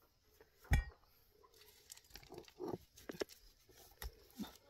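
Rock-breaking work: one sharp, hard knock just under a second in, then scattered light clicks and clatters of loose stone.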